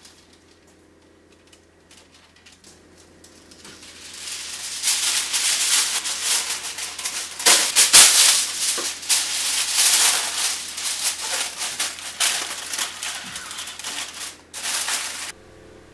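Aluminium foil crinkling and rustling loudly as a sheet is spread over a roasting tin and pressed and crimped down around its edges. It starts after a few quiet seconds and cuts off abruptly near the end.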